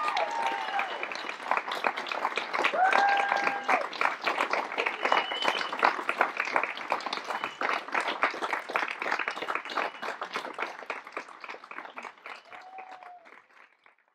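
Theatre audience applauding, with a few short calls over the clapping about three seconds in. The clapping thins and fades out to nothing near the end.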